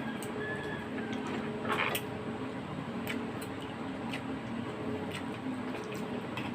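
Eating sounds during a bulalo soup meal: scattered small clicks and wet smacks of chewing and utensils, with one short louder rush of noise about two seconds in, over a steady low hum.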